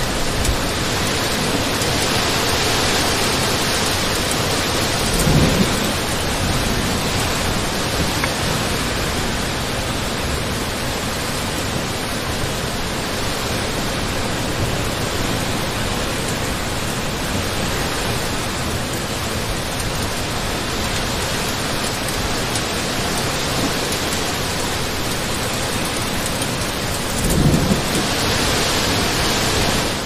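Heavy rain falling steadily, an even hiss of dense drops. Two brief low rumbles rise out of it, about five seconds in and again near the end.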